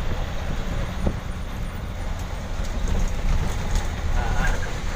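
A bus engine running under a steady low rumble of tyres on a rough, unpaved road surface, heard from inside the driver's cab, with a few brief knocks and rattles.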